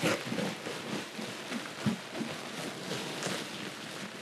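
Sawdust pouring out of a plastic sack: a steady rustling hiss of falling wood shavings with the sack crinkling and one soft knock.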